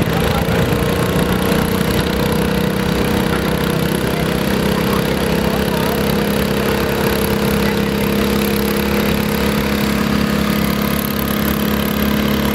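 Tractor engine running steadily under load while pulling a weight sled, a steady drone whose pitch rises a little in the first second and then holds.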